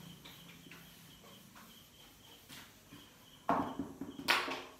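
A whiteboard duster rubbing across a whiteboard, erasing marker writing: faint strokes at first, then two louder rubbing strokes near the end.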